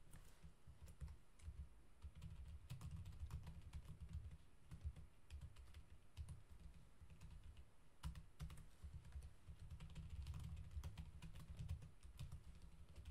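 Faint typing on a computer keyboard: irregular key clicks, with a low rumble underneath.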